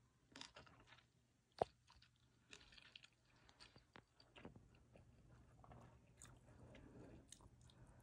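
Someone eating gimbap: faint chewing with small clicks and rustles, and one sharper click about a second and a half in.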